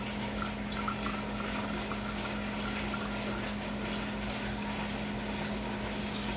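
Acetone poured in a thin stream from a glass measuring cup into a glass mason jar, a steady trickle of liquid into liquid, over a constant low hum.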